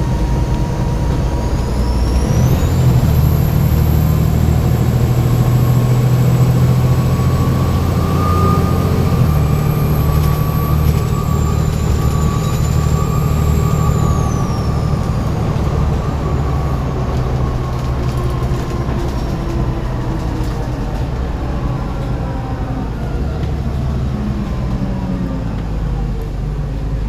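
Volvo B7TL bus's turbocharged diesel engine running under load with a high turbo whistle that rises about two seconds in, holds, then glides down and fades out about halfway through. Through the second half the engine note falls slowly as it eases off.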